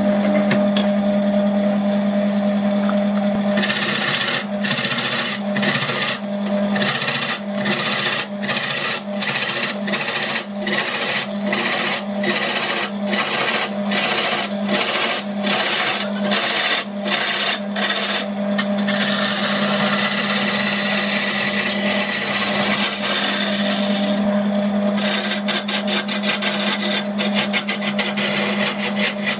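Wood lathe motor running with a steady hum while a turning tool cuts a large spinning log. The rasping cut begins a few seconds in and pulses about once or twice a second, runs unbroken for a few seconds past the middle, then pulses faster near the end.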